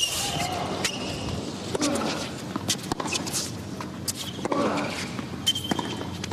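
Tennis rally: racquets striking the ball about once a second, several strokes accompanied by a player's short grunt.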